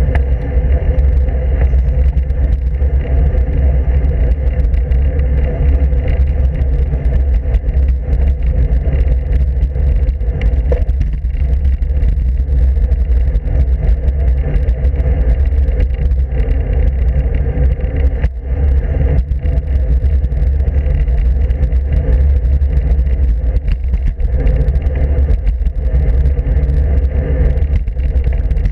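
Steady wind buffeting and road rumble on a camera mounted on a road bike's handlebars while riding. It is a loud, unbroken low rumble.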